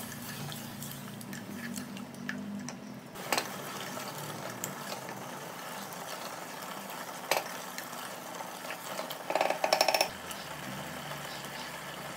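Chicken frying in onion-tomato masala in a pressure cooker, stirred with a wooden spatula: a steady low hiss of frying with a few sharp knocks of the spatula against the pot, and a quick rattle of taps near the end.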